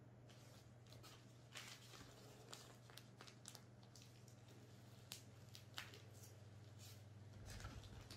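Faint rustling and crinkling of a disposable diaper and its wrapping being handled, in scattered short crackles with a louder rustle near the end, over a steady low hum.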